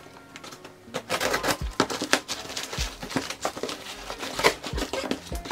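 Scissors cutting through a cardboard box, then the cardboard flaps and paper packaging being pulled open. From about a second in there is a dense run of sharp crackling, crinkling and scraping strokes.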